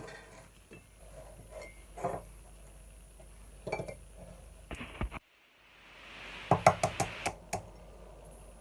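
Eggs being cracked on the rim of a bowl: scattered clinks and knocks of shell against the dish, then a quick run of about half a dozen sharp taps in the second half.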